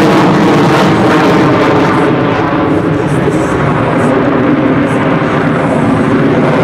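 F-16 Fighting Falcon's jet engine in maneuvering flight: a loud, steady, rushing rumble, its highest hiss easing slightly after about two seconds.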